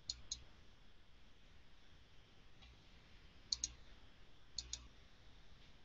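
Faint computer mouse button clicks: three quick pairs of clicks, one at the start and two more a second apart later on, over a faint hiss.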